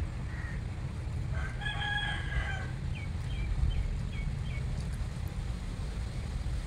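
A rooster crows once, a held call of about a second and a half, followed by five short falling chirps from a small bird, over steady wind rumble on the microphone.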